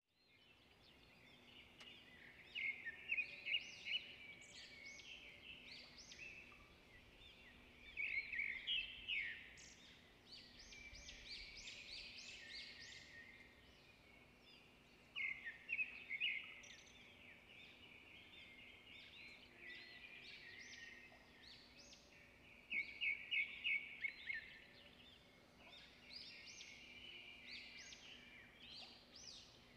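Small birds chirping and twittering in repeated bursts of quick, high notes, with a faint steady hum beneath.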